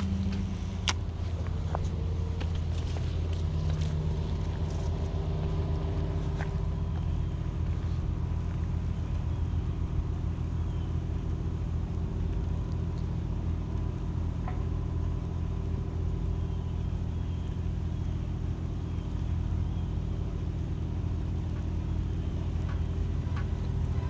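Steady low rumble, with a few faint clicks in the first several seconds.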